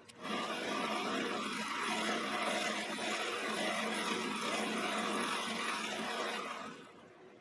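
Quorn tool and cutter grinder's wheel grinding the end teeth of a high-speed steel end mill: a steady grinding hiss that starts abruptly and fades out near the end.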